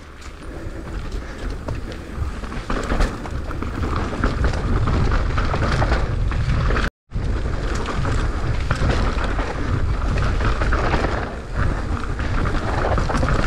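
Mountain bike riding down a loose dirt trail: a steady rushing rumble of wind and tyres on loose ground, with rattling from the bike. The sound cuts out for an instant about seven seconds in.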